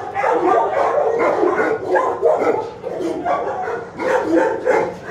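Shelter kennel dogs barking and yipping, about three barks a second with hardly a pause.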